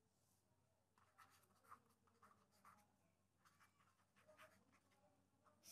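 Faint scratching and tapping of a stylus writing on a tablet surface, a run of short strokes starting about a second in, with a sharper tap near the end.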